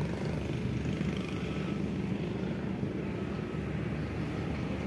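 Steady low drone of a running motor, an even hum that doesn't change.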